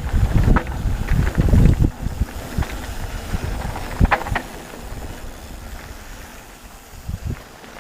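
Mountain bike rolling fast down a dirt trail: rumbling tyre noise and wind on the microphone, with the bike knocking and clattering over bumps. It is loudest and busiest in the first two seconds and eases off after a sharp clatter about four seconds in.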